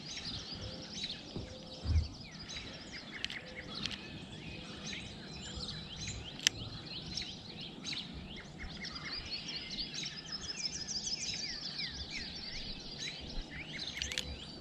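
Birds singing and chirping in the background, with a dense run of fast repeated chirps past the middle. A low thump comes about two seconds in and a sharp click at about six and a half seconds.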